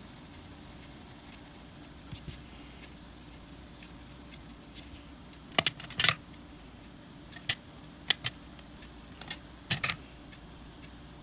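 Colored pencils clicking and tapping against each other and the table as they are picked up and put down: about ten sharp clicks, several in quick pairs. A low steady hum runs beneath.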